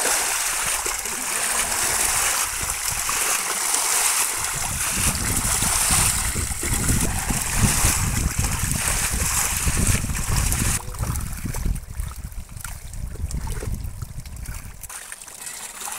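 Muddy water splashing and pouring as buckets bail water and mud in a drained pond, with an uneven low rumble underneath. The splashing grows quieter about two-thirds of the way through.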